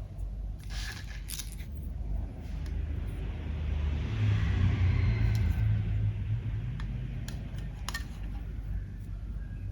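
Makeup being worked into clear slime by hand: a few sharp clicks about a second in, then a longer, louder soft crackling noise in the middle, with another click near the end.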